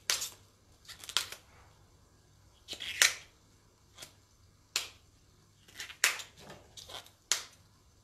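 Outer leaves of a globe artichoke snapped off by hand one after another, about eight short crisp snaps, the loudest about three seconds in.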